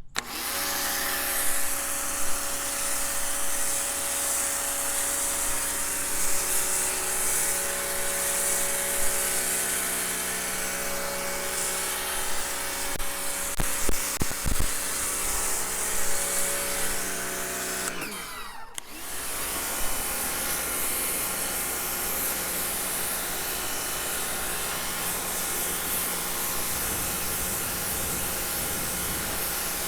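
Prymax 3000 PSI electric pressure washer running, its electric motor and pump humming steadily under a hiss of water spray. The sound breaks off briefly about two-thirds of the way through, then picks up again.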